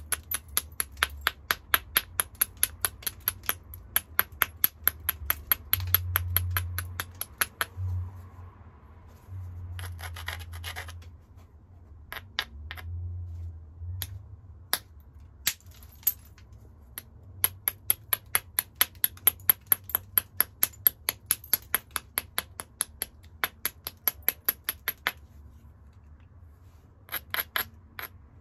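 A small hammerstone tapping and rubbing along the edge of a hornstone (chert) biface: long runs of quick, light clicking strikes, several a second, broken by pauses with short bursts of grinding. This is the stone being abraded and prepared along its edge before flakes are struck off.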